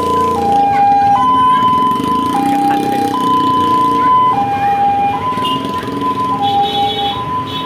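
Bus telolet horn on the Benteng Jaya 'Arjuna' bus playing a siren-like two-note high–low pattern, each note held about a second, over the bus's running engine.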